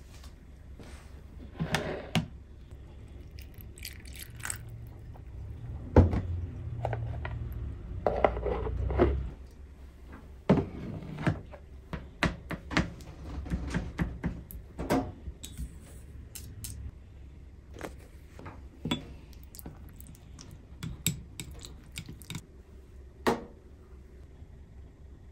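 Kitchen prep handling sounds: scattered clicks and knocks from a kitchen knife cutting on a board and containers and utensils being set down on a steel counter, with a heavier thud about six seconds in.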